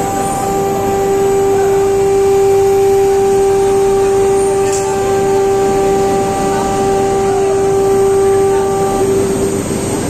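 Large 35-tonne coreless induction melting furnace under power, giving a steady hum with overtones over a loud, even rushing noise from the melt and plant.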